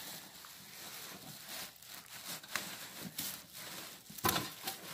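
Plastic wrapping crinkling and rustling in irregular bursts as it is pulled back by hand inside a cardboard box, with a louder rustle near the end.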